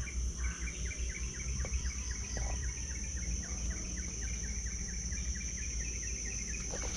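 Outdoor ambience of vegetation: a steady high-pitched insect drone, with a long run of quick short chirps, about five a second, that slowly drop in pitch and stop near the end, over a low rumble.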